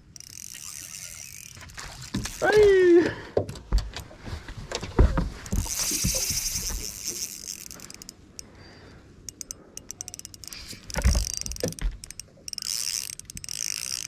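Fishing reel cranked in two bursts of rattling gear noise while a queenfish is played on light tackle. Thumps on the boat deck come between the bursts, and a brief pitched whine sounds about two and a half seconds in.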